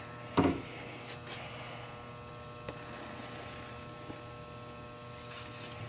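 Steady electrical hum, with a short loud handling noise about half a second in and a few faint ticks later as 550 paracord is pulled and looped around a paddle shaft.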